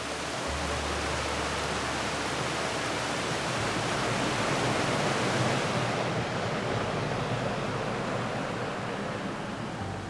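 Waterfall: a steady rush of falling water that turns duller, with less high hiss, about six seconds in.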